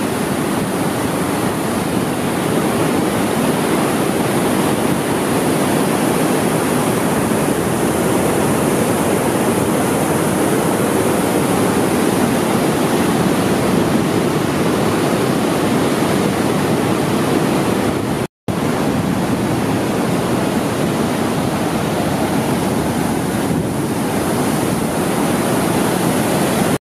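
Kinuseo Falls, a big waterfall, giving a loud, steady rush of falling water. The sound cuts out for an instant about eighteen seconds in.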